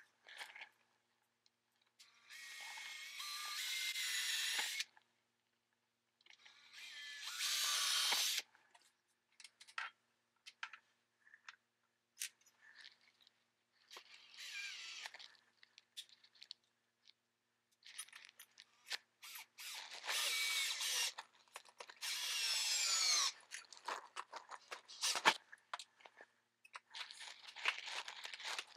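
Cordless drill running in about five bursts of a few seconds each, its motor pitch rising as the trigger is squeezed and falling as it is let off, as the bit works through the holes of a metal bracket into the floor. Short clicks and clatter of tools and brackets come between the bursts, thickening near the end.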